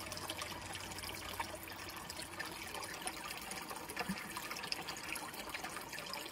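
Water trickling over rock: a steady trickle with many small splashing ticks.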